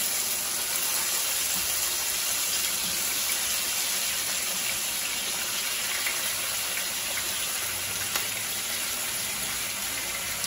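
Marinated chicken pieces sizzling in hot olive oil in a nonstick frying pan over a gas burner turned up to full high: a steady hiss with a few small pops.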